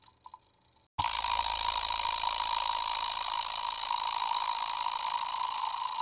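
Bicycle chain spinning: a fast, dense, steady rattle that starts suddenly about a second in, after a few faint clicks.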